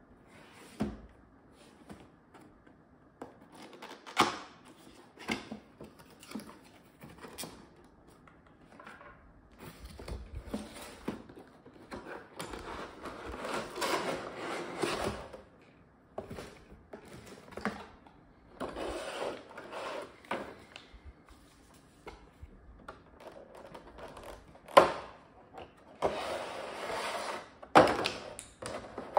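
Packaging being handled in an unboxing: a cardboard box opened and slid about, a clear plastic tray and plastic bags crinkling, with several sharp knocks as items are set down on the table.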